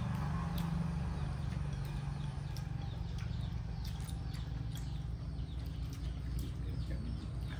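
Small birds chirping in short falling calls over a steady low rumble, with a few light clicks of chopsticks against rice bowls.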